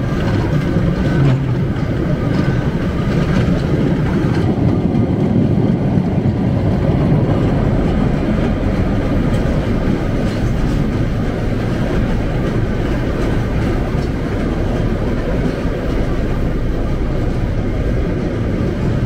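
Mine-car ride train running along its track with a steady, loud rumble.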